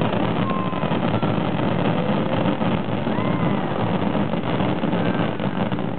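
Starmine fireworks barrage: a dense, continuous run of shell bursts merging into a steady rumble, with rapid crackling on top.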